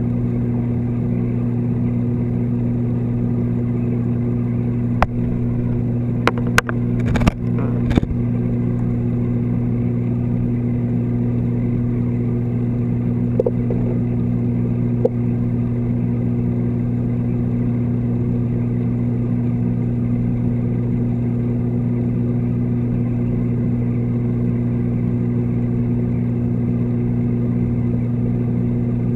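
Steady low electrical hum of reef-tank pumps, heard underwater through the camera housing. A few sharp clicks come about five to eight seconds in.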